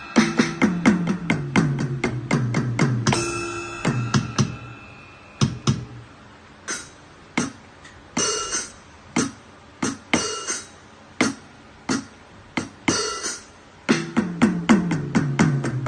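Electronic drum sounds from a Medeli instrument: quick runs of tom hits stepping down in pitch, then single percussion hits about one a second through the middle, then another falling tom run near the end.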